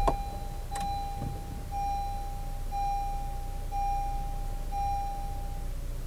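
2016 Honda Civic's seat-belt reminder chime, a steady electronic tone repeating about once a second, each nearly a second long, warning that the driver's belt is unfastened. A low steady rumble from the car runs beneath, and two sharp clicks come near the start.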